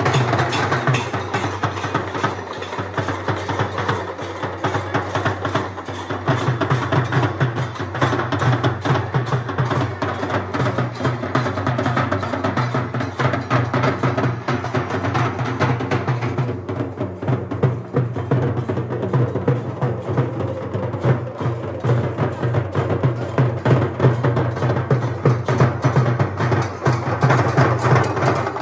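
Fast, continuous drumming and percussion in a dense run of rapid strokes; the bright high end thins out a little past the halfway point.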